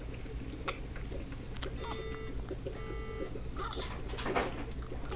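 Baby hiccuping: several short, sharp hics at irregular intervals, with a couple of soft held tones in between.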